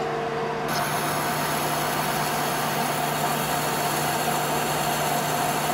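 Metal lathe running steadily with a constant hum while a carbide insert faces the head of an aluminum Caterpillar 342 natural gas engine piston.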